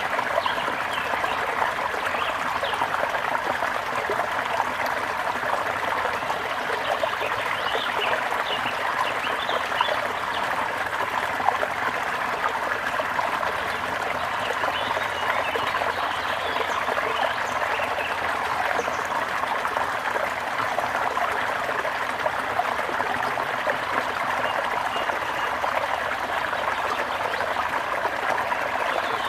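Gentle river or stream flowing and trickling steadily.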